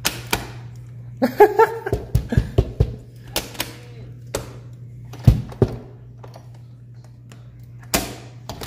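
Scattered knocks, clicks and a few heavy thuds, irregularly spaced, over a steady low hum. A brief voice-like sound comes about a second in.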